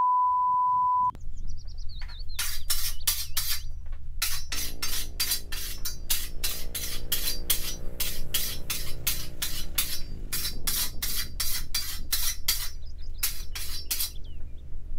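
A one-second censor bleep, then a machete blade being sharpened: rhythmic metal scraping strokes, about four a second with short pauses, over soft background music.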